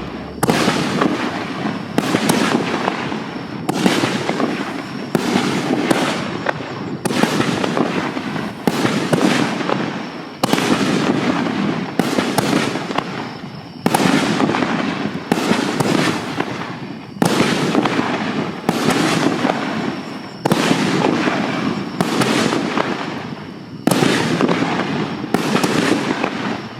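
5-inch canister firework shells bursting one after another, roughly every second and a half, each starting suddenly and fading into crackle.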